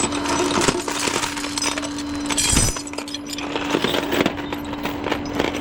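Heavy metal tow hooks and chains clanking and rattling as they are handled, with many sharp clinks and knocks, over a steady hum.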